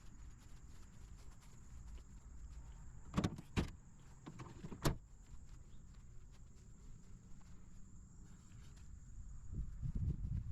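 Three sharp knocks, two close together about three seconds in and a third a second later, over a faint low rumble and a steady faint high whine.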